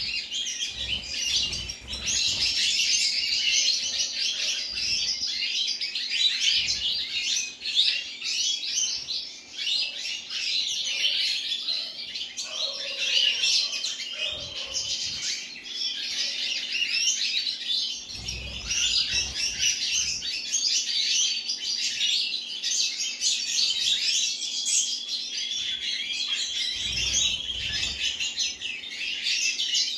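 European goldfinches (Siberian 'major' subspecies) singing: a dense, continuous twittering song of quick, high chirps and trills without pause, with a few soft low thuds underneath.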